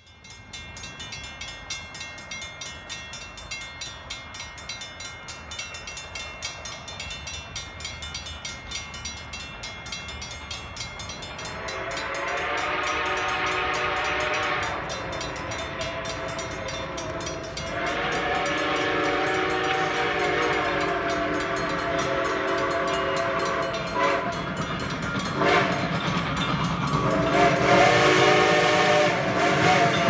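Steam locomotive chime whistle blowing a chord of several tones: a long blast, a longer one, two brief toots, then another long blast near the end. Underneath is a rapid, even beat from the passing train, growing louder.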